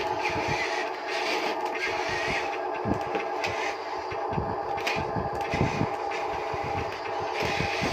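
Radio-controlled Huina toy construction vehicle working: a steady whine from its small electric motors, with irregular low knocks and a few sharp clicks.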